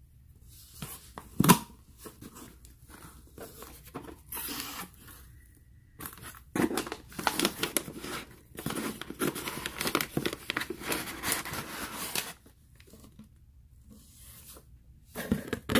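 Shipping package being torn and opened by hand: tape and packaging tearing and crinkling, with a sharp knock about a second and a half in and a long stretch of steady tearing and rustling from about six seconds in.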